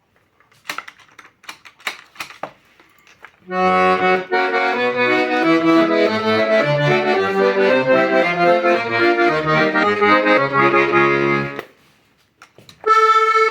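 Hohner Arietta I M piano accordion, a single-reed instrument, being played: a few sharp clicks to begin with, then from about three and a half seconds a tune with bass notes and chords under it. The playing stops just before the end, and a held chord starts right at the end.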